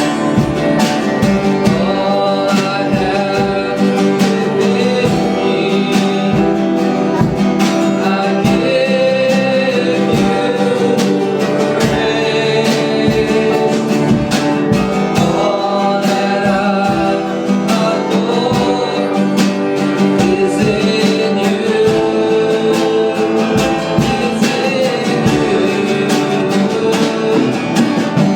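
Worship music: voices singing over a strummed acoustic guitar with a steady beat.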